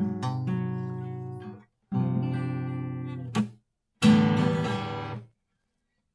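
Guitar playing short phrases of plucked notes and chords, three bursts each stopping abruptly into silence; the third, about four seconds in, opens with a louder strummed chord.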